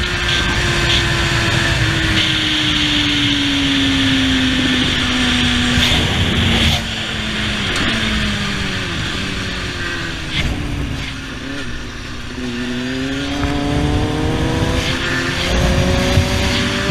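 Motorcycle engine heard from the rider's own bike: the engine note falls slowly for the first several seconds as the bike slows, then climbs again from about twelve seconds in as it accelerates, with a steady rush of wind and road noise throughout.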